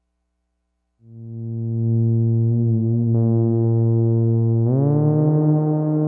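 Korg ARP 2600 synthesizer playing its Trombone/Tuba patch from the original patch book. After about a second of silence a low note swells in and holds, then a little before the end it slides up to a higher held note.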